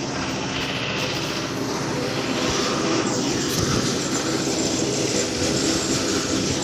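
A motor running steadily, growing gradually louder.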